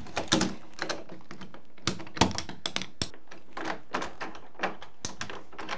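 Irregular clicks, taps and knocks of a metal doorknob set being fitted onto an interior door: the knob halves and latch mechanism rattling and clicking as they are pushed together and handled.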